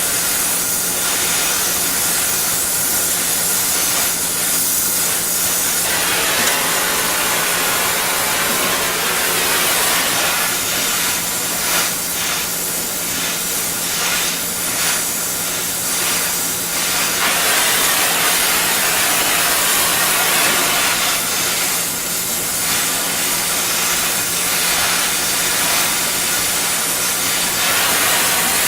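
Gas torch flame hissing steadily while a C-clamp's swivel button is heated so it can be crimped on, with a steady low hum underneath.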